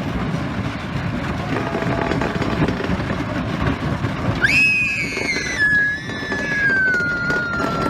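A wooden roller coaster train running along its track, with a steady rumble of wheels and wind. About halfway through, a loud high-pitched squeal or cry jumps up, then slowly falls in pitch for about three seconds.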